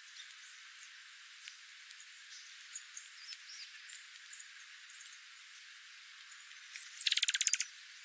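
Dark-eyed juncos feeding, giving faint scattered high chips, heard thin with the low end filtered out. Near the end comes a sharp high note, then a sudden loud flurry of rapid wingbeats as the birds flush.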